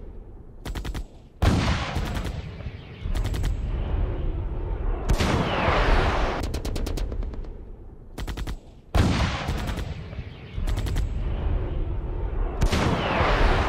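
Battle sounds from an ambush: repeated short bursts of rapid automatic gunfire over a heavy low rumble, with two long falling whooshes, one in the middle and one near the end.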